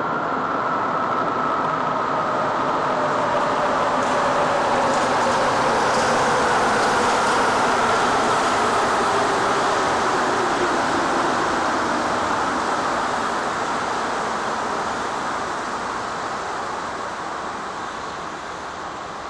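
Rubber-tyred Montreal Metro train pulling into the station and braking. Its rolling noise is loudest about a third of the way in and then eases as it slows. Through it runs a whine that falls steadily in pitch as the train decelerates.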